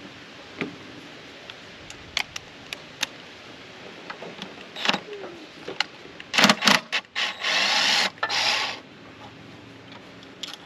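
Light metallic clicks of a Torx bit being fitted, then a cordless power driver with a long T30 Torx bit, blipped a few times and then run in two bursts of about half a second each, loosening a throttle body bolt.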